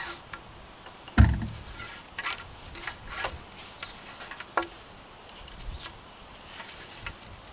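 Rope being hauled and wrapped around crossed poles as the tightening turns of a lashing are drawn in: rustling and scraping of cord against the poles and hands. There is a loud, deep thump about a second in, and several short scrapes follow.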